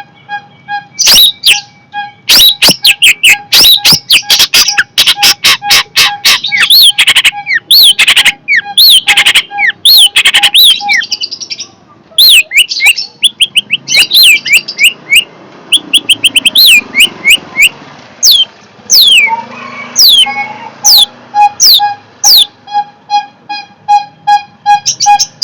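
Long-tailed shrike (cendet) calling loudly: rapid harsh chattering strings and sharp rising and falling whistled notes, one after another. A steady, evenly pulsing tone runs under it for the first ten seconds or so, stops, and comes back near the end.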